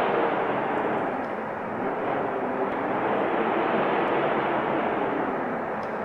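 Snowstorm wind blowing as a steady, dense rushing noise, easing slightly about a second and a half in before building again.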